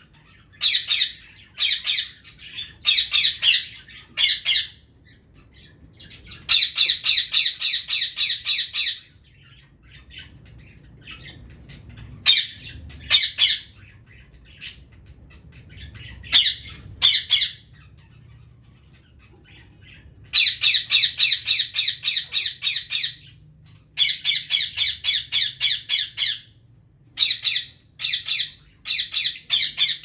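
Indian ringneck parakeets calling in bursts of rapid, shrill, repeated calls, about five a second. Some runs last two to three seconds, and between them come shorter bursts of two or three calls and brief pauses.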